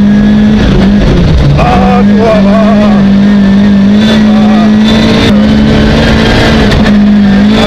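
Rally car engine running hard at high revs, heard loud inside the cockpit, with a few brief dips in pitch along the way.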